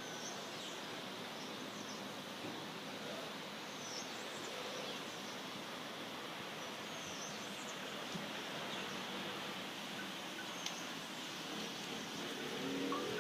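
Steady outdoor ambient noise with a few short, high bird chirps scattered through it; near the end a motor vehicle's engine begins to come in.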